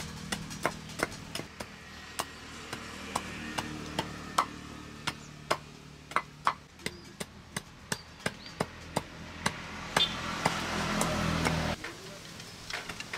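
A heavy knife blade chopping into a stick of soft wood braced on a wooden block, two or three sharp chops a second. A steady low hum in the background cuts off suddenly near the end.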